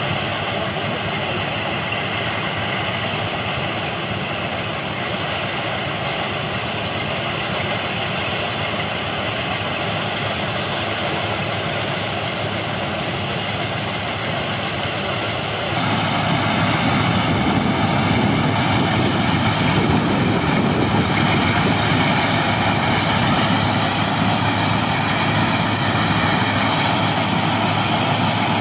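Railway ballast cleaning machine at work: its engines and digging and conveyor machinery run steadily while it throws out old ballast and spoil. The noise grows louder and fuller about sixteen seconds in.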